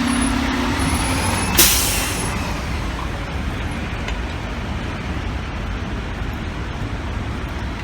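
Fire rescue truck in traffic: a low steady horn tone dies away in the first second or so, a short sharp air-brake hiss comes about a second and a half in, then the truck's engine and the street traffic slowly fade.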